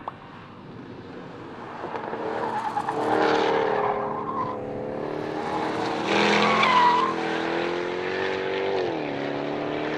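Porsche 911 R's naturally aspirated flat-six, the GT3 RS engine, driven hard and growing louder, its note climbing, with tyres squealing twice. The engine note dips briefly near the end, then climbs again.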